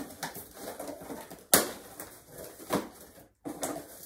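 Cardboard box being opened by hand: flaps and tape crackling and rustling in irregular bursts, with a sharp crack about a second and a half in and smaller ones later.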